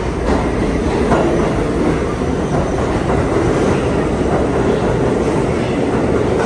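R62A subway train entering the station and running past the platform: a loud, steady rumble of steel wheels on rail with a few sharp clicks as the cars pass.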